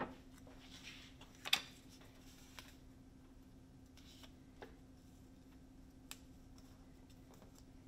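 Tape and a paper note card being handled: scattered small clicks and a brief rustle, the loudest click about one and a half seconds in, over a steady low hum.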